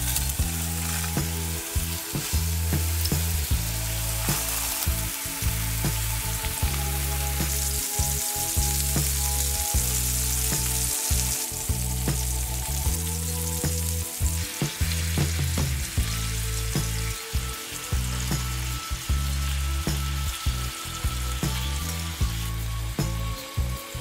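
Minced-meat patties skewered with dry spaghetti sizzling in hot oil in a nonstick frying pan, with short clicks as they are placed and handled. A low background tune changes note every second or two.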